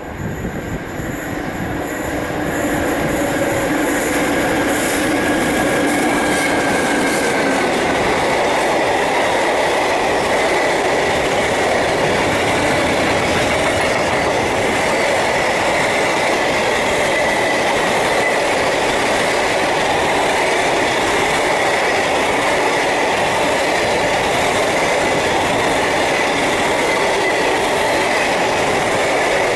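A British Rail Class 92 electric locomotive hauling a freight train approaches and passes at speed. The sound swells over the first few seconds with a whine that falls in pitch as it goes by, then settles into the steady loud rumble and clatter of loaded wagons rolling past. A high, steady squeal runs over the rumble.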